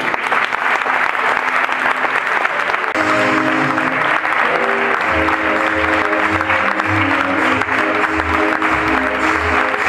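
Audience applause breaks out and keeps going over music, with a pulsing bass beat coming in about five seconds in.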